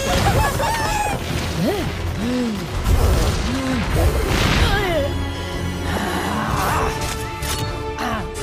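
Animated-film soundtrack: explosions and crashing impacts mixed over music, with several short pitch glides that rise and fall in the middle.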